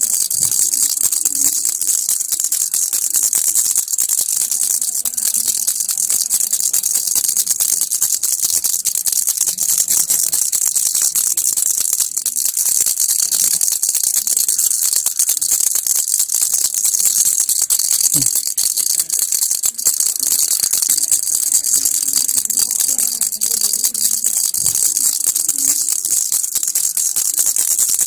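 Baby's toy rattle shaken on and on without a pause: a dense, even, high rattling.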